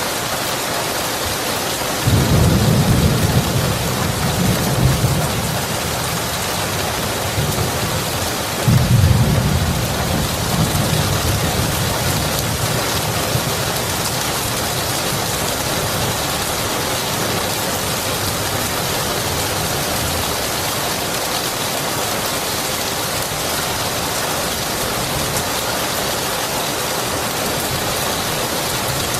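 Steady heavy rain with two rolls of thunder, the first starting suddenly about two seconds in and the second, a little louder, about eight seconds in, each rumbling low and fading over several seconds.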